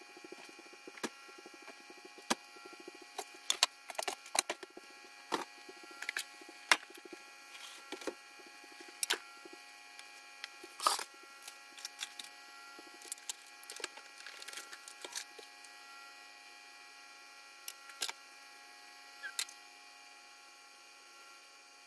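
Irregular clicks, taps and knocks of small objects being handled and set down on a table while tidying, over a steady electrical hum.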